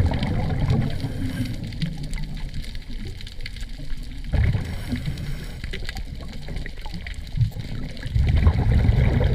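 Muffled underwater water noise: a low rushing rumble that swells louder at the start, about halfway through and near the end.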